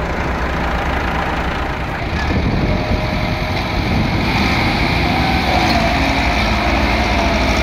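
Diesel farm tractor engines running hard under heavy load, pulling a loaded trolley stuck in mud. The engine noise gets louder and brighter about four seconds in.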